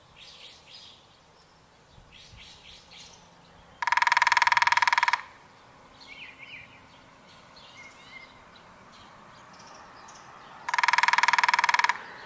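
Woodpecker drumming: two loud, very rapid drum rolls of about a second and a half each, some seven seconds apart, with a ringing tone. Fainter bird chirps come between them.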